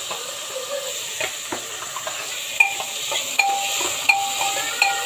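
Oil sizzling steadily as vegetables fry in a pressure-cooker pot, with a metal spatula stirring and clinking against the pot several times; some of the later clinks ring briefly.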